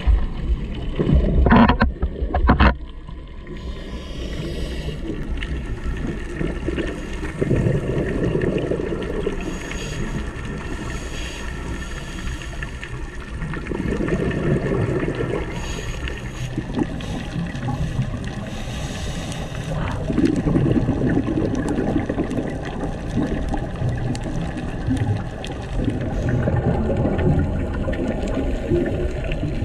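Scuba diver's regulator breathing underwater: a hissing inhale followed by a gurgling burst of exhaled bubbles, repeating about every six seconds, loudest in the first few seconds.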